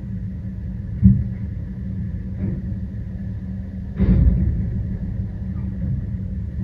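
Automated side-loader garbage truck idling with a steady low rumble while its hydraulic arm works. There is a sharp knock about a second in, and a louder clatter about four seconds in as the arm tips the cart over the hopper to empty it.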